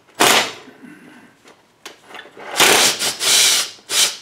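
A power tool run in short bursts while the clutch is taken apart. There is one brief burst near the start and three longer ones in the last second and a half.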